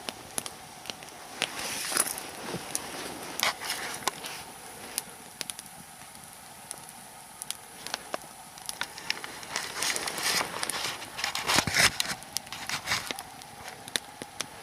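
Nodya log fire crackling, with irregular sharp pops and snaps and a denser run of louder pops about ten to twelve seconds in. A nodya is a long-burning night fire of logs laid lengthwise.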